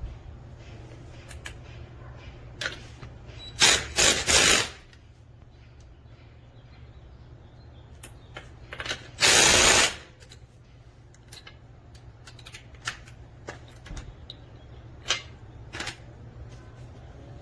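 DeWalt 20V MAX cordless impact wrench hammering in short loud bursts: three quick ones about four seconds in and a longer one of under a second near the middle, with scattered clicks between them over a steady low hum.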